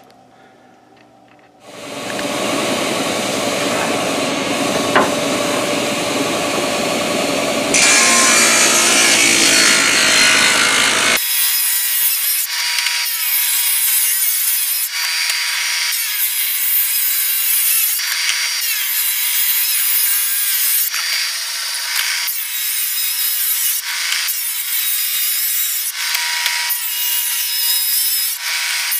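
Woodworking power tool starting up about two seconds in and running. From about eleven seconds, a table saw with a thin blade ripping a hardwood board lengthwise: a steady high whine with the cutting noise, broken by short pauses.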